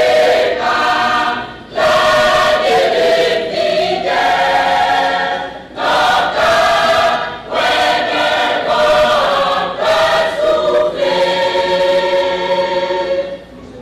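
Large church choir singing together in phrases, with short breaks between them. It drops away near the end.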